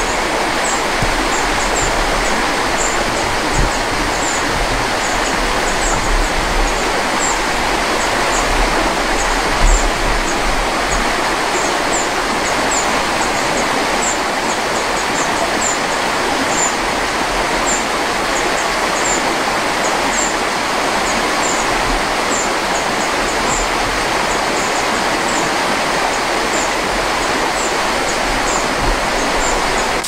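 Rushing water of a small river tumbling over rocks and little cascades, a steady hiss. A faint high chirp repeats two or three times a second above it.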